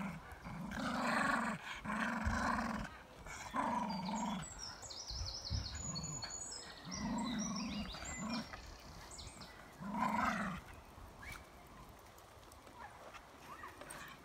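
A dog growling in play while tugging at a rope swing: a string of short growls, each under a second, stopping about eleven seconds in.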